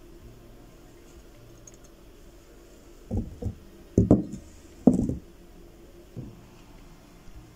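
A handful of dull knocks in a small room: a cluster of about five between three and five seconds in, the loudest two about a second apart, then one fainter knock a little after six seconds.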